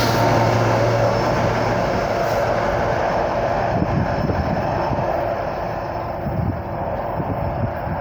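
Rear BNSF EMD SD70ACe locomotive of a loaded coal train passing close by, its diesel engine drone dropping away after about two seconds. Then the train's wheels on the rails rumble and fade steadily as it moves off, with a few low thumps.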